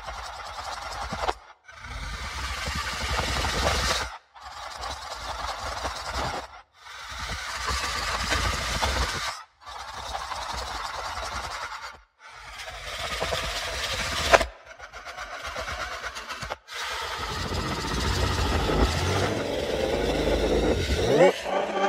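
Monster growl sound effects: about eight rough, rasping growls with a deep rumble, each two to three seconds long and separated by short breaks. The last one runs longer and rises in pitch near the end.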